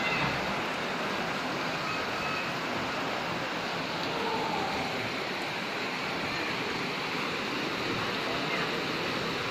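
Steady rush of floodwater flowing down a flooded street, a continuous even noise without breaks.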